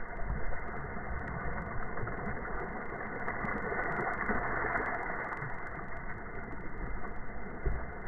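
Steady rushing wind and water noise on a dragon boat being paddled, with scattered small clicks.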